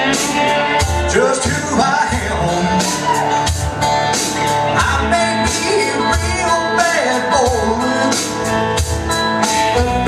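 Live country-rock band playing loudly through a PA, with a steady drum beat, bass and electric guitar.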